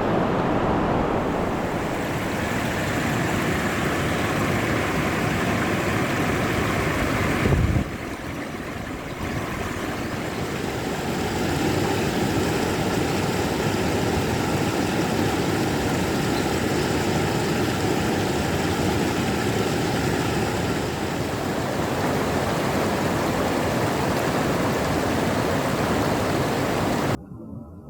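Rushing river water, a steady full hiss, with a brief low thump about eight seconds in; the flow cuts off suddenly near the end.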